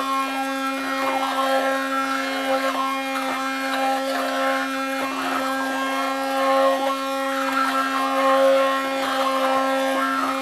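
Electric stick blender running steadily with a constant motor hum while pureeing cooked tomato sauce in a pot, with occasional light knocks.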